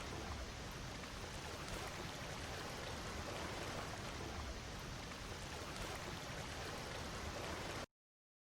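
Faint, steady rushing of a flowing stream, which cuts off suddenly near the end.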